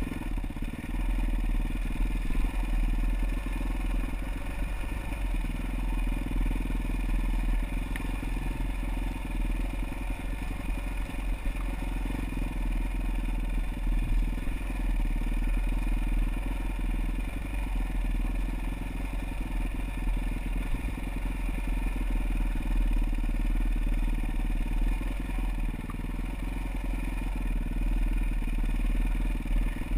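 Off-road motorcycle engine running steadily along a rough trail, with scattered clatter and rattling throughout.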